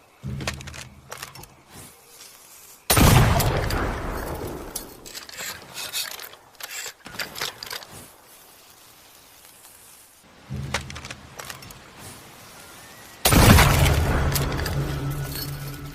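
Tanegashima matchlock gun fired twice, about 3 s and about 13 s in. Each shot is a loud boom that dies away slowly over several seconds, and each follows a quieter, shorter burst some two and a half seconds earlier.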